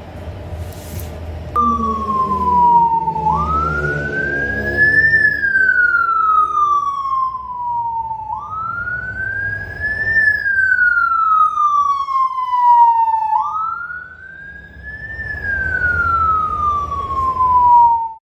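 Whelen Alpha 15-watt electronic motorcycle siren sounding a wail: a tone that climbs quickly, then falls slowly, repeating about every five seconds for three cycles before it cuts off suddenly near the end. A couple of clicks come just before it starts, over a low rumble.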